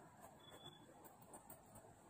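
Faint rustling with small crackles of fingertips massaging oil into heavily oiled hair and scalp.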